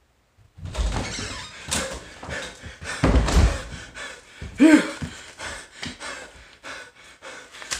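A house door banging open and slammed shut, with heavy thumps and clattering as someone bursts into the room, and a short vocal exclamation a little past halfway.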